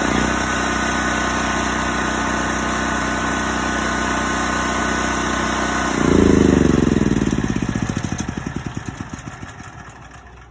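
Generac GP8000e portable generator's engine running steadily just after starting, then shut off about six seconds in and winding down, its pitch falling and fading over several seconds.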